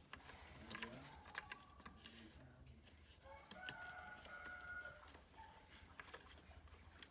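A rooster crowing faintly once, about halfway through, among a few faint light clicks and taps.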